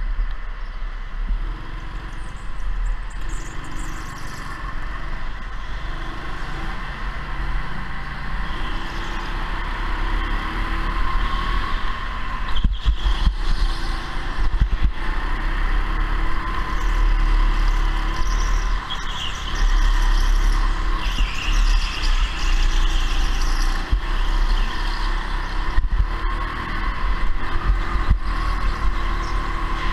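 Rental go-kart being driven on the track, its motor running continuously with a low rumble and a steady, slightly wavering whine.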